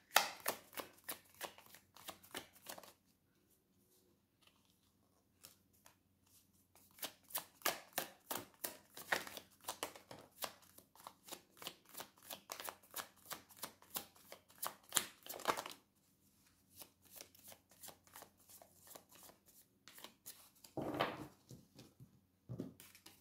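A tarot deck being shuffled by hand: quick runs of card flicks, broken by a short pause about three seconds in, then a long fast stretch and sparser flicks, with one louder swish near the end.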